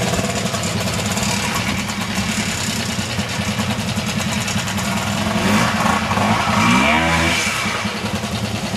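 Vintage trials motorcycle engine running at low revs, with a fast, even exhaust beat as the bike climbs. The engine revs up once near the end, the pitch rising.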